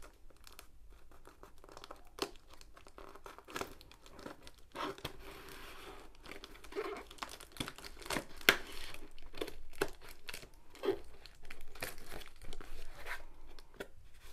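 Scissors cutting through the packing tape on a cardboard box and the cardboard flaps being pulled open: irregular crackling, scraping and tearing, busier and louder in the second half, with one sharp crack about eight and a half seconds in.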